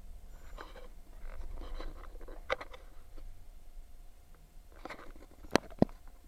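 Light handling noises, scraping and rustling, with a sharp click about two and a half seconds in and two louder knocks close together near the end.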